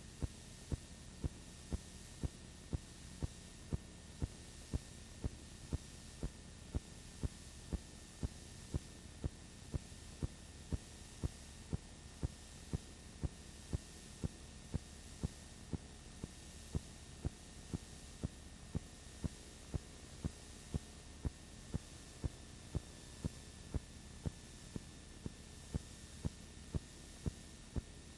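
Steady low hum and hiss with a sharp click repeating evenly, a bit more than once a second: background noise on the track of a silent home-movie transfer, with no sound from the filmed scene.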